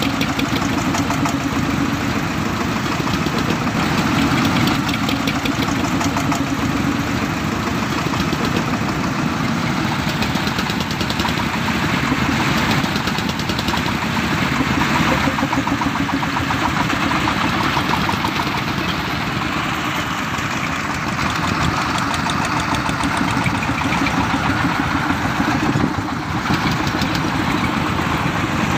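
Engines of mobile rice-mill vehicles running as they drive slowly across a grass field, a loud steady sound with a fast even pulse.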